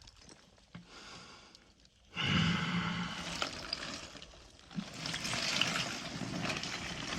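A man in an ice bath lets out a long, voiced sigh about two seconds in, breathing through the cold, followed by a softer stretch of swishing noise from the water around him.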